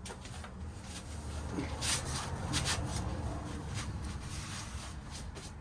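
Rustling and rubbing handling noises, several short scrapes with two stronger ones in the middle, as a self-adhesive part is pressed on by hand. A steady low rumble runs underneath.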